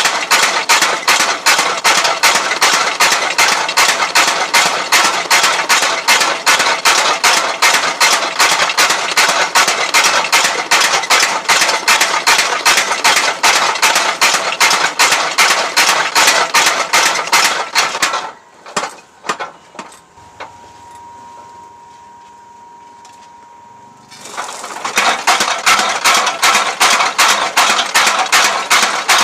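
Homemade power hammer pounding hot steel being forged into a sickle blade, a rapid, even run of metal blows at about three to four a second. About two-thirds of the way through, the blows stop for about six seconds, leaving a few separate knocks and a faint steady machine hum, then the hammering starts again.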